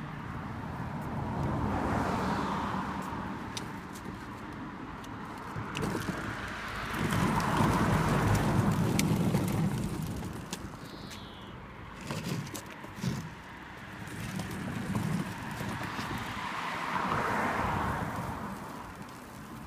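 Hard plastic wheels of a Little Tikes Cozy Coupe ride-on car rolling and rumbling over a paved path as it is pushed. The rumble swells and fades several times and is loudest about halfway through, with a few short knocks a little later.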